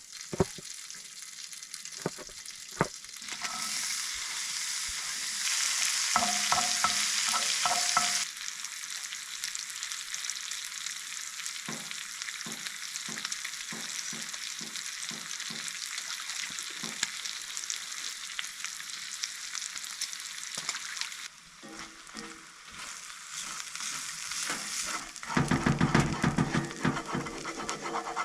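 Eggs, bacon and onion frying and sizzling in a pan, with a utensil stirring and scraping in it and a few sharp taps. The sizzle is loudest a few seconds in, and near the end comes a louder, rougher stretch of frying.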